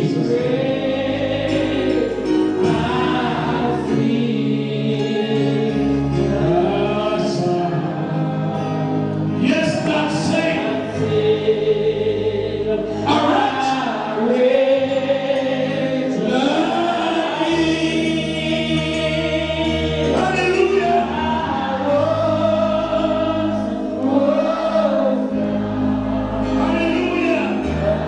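Church congregation or choir singing a gospel song together over instrumental backing, with a bass line moving between held low notes.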